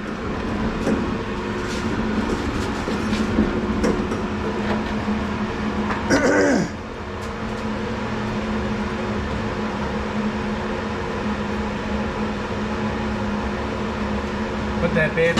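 Steady mechanical hum with a low drone, like a running fan or machine. A short falling squeal-like sound comes about six seconds in.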